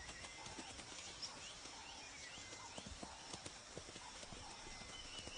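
Faint, irregular hoof footsteps of an impala fawn and its mother walking on dry ground.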